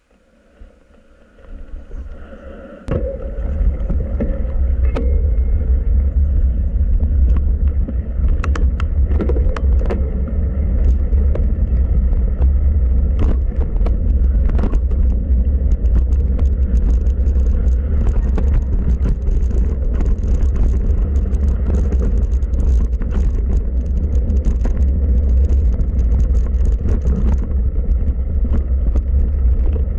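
Mountain bike descending a rough dirt forest trail, heard from a camera on the rider: a loud low rumble of wind and trail vibration with scattered clicks and rattles from the bike over roots and stones. It starts up about three seconds in, after a quiet start.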